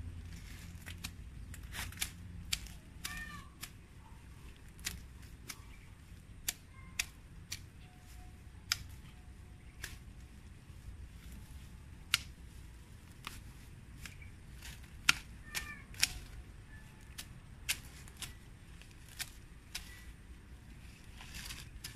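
A parang (machete) chopping and scraping through grass and weeds at ground level, with irregular sharp strikes about one or two a second. A few short high calls that fall in pitch sound in between.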